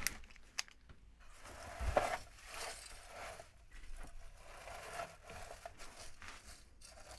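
Faint rustling and small clicks of parts and material being handled, with one louder knock about two seconds in.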